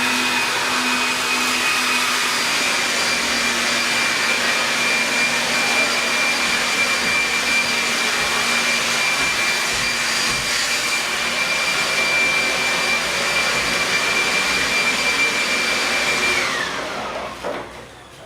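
An electric motor appliance running steadily, a high whine over an even rush of noise. About sixteen seconds in it is switched off and the whine slides down as it spins to a stop.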